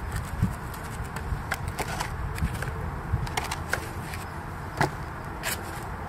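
Potatoes being set one after another into a bowl on a kitchen scale: scattered soft knocks and clicks, irregularly spaced, over a steady low outdoor rumble.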